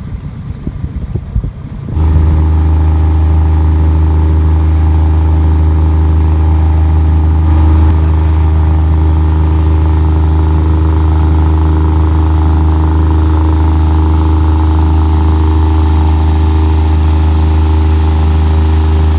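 Water taxi boat's engine running at a steady cruising pitch, heard from on board. It starts after about two seconds of quieter, uneven low rumble, with a slight change in pitch about eight seconds in.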